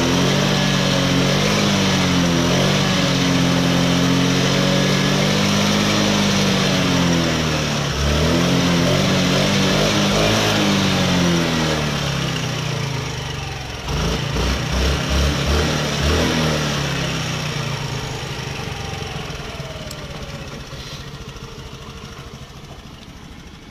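Scooter engine running while a carbon-cleaning liquid is fed into it by syringe, its speed rising and falling unevenly. About fourteen seconds in it gives a few quick blips, then the engine note stops and the remaining sound fades away over the last several seconds.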